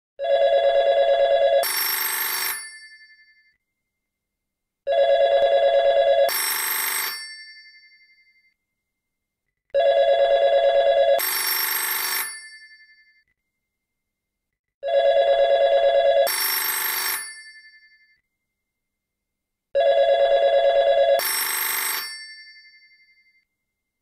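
Cell phone ringtone ringing five times, about five seconds apart. Each ring is a low warbling tone followed by a higher ringing tone that fades out.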